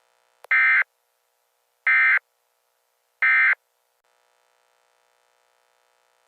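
Emergency Alert System end-of-message data burst: three short identical bursts of shrill digital data tones, each about a third of a second long and about 1.4 s apart, marking the end of the alert.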